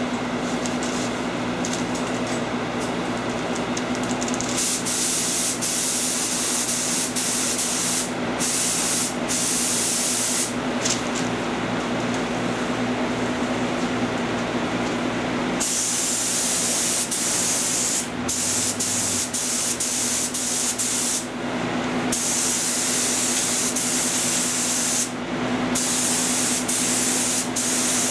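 Compressed-air paint spray gun spraying base coat in a series of trigger pulls: each a few seconds of loud hiss, with short breaks between, over a steady low hum.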